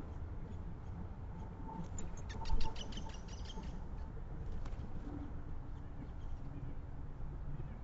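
Backyard birds calling at a feeder: a rapid run of short, high notes about two seconds in, over a steady low background, with a brief thump in the middle of the run.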